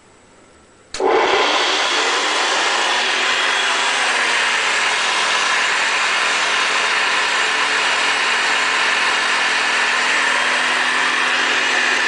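Vintage Hoover Convertible Model 66 upright vacuum cleaner switched on about a second in, its motor coming up abruptly and then running loud and steady.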